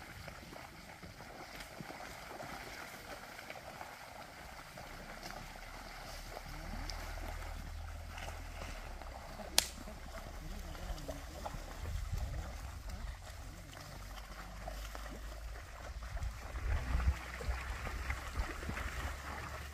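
Water buffalo herd moving through wet brush and mud: a steady rustling, splashing noise of their steps, over a low rumble, with one sharp click about ten seconds in.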